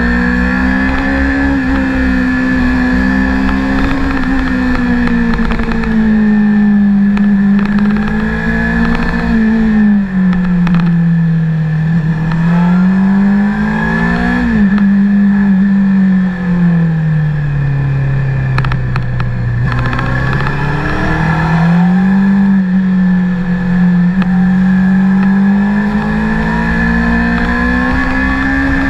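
Honda CBR600RR's inline-four engine pulling the bike uphill through bends, its pitch rising and falling with the throttle. It drops to its lowest about two-thirds of the way through, then climbs again, over a steady wind rumble on the microphone.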